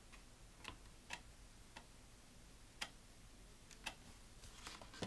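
Chinon FB-354 Amiga floppy drive clicking, its head stepping in sharp ticks about once a second: the drive's disk-change polling, a sign that it does not see a disk, which the owner traces to a faulty disk-detect microswitch.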